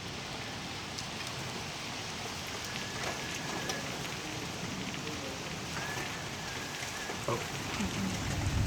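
Heavy rain falling steadily, hissing on surfaces, with a low rumble building near the end.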